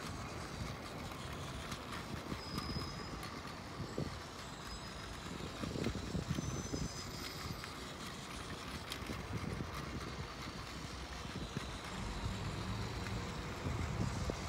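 Outdoor ambience: wind rumbling on the microphone over a steady background hum of traffic, with a few brief high-pitched tones a few seconds in.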